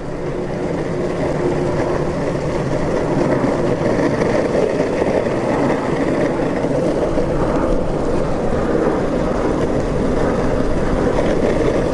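Electric skateboard rolling over a rough road surface: a steady, loud rumble of the wheels on the pavement.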